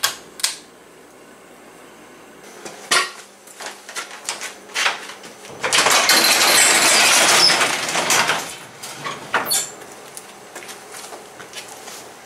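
Two sharp clicks from a pull-chain light switch, then scattered knocks and clanks. About halfway through, a sectional garage door rattles loudly open along its metal tracks for about three seconds.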